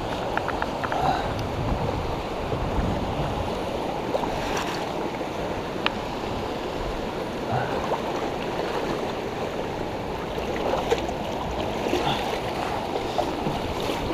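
Rushing current of a fast tributary stream, a steady noise, with a few brief clicks scattered through it.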